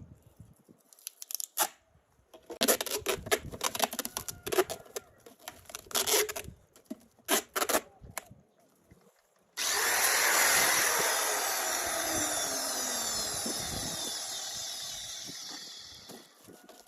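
Clear tape being worked around a plastic jug: several seconds of irregular crackling and ripping, then about ten seconds in a long, loud screech of tape pulled off the roll that slowly fades.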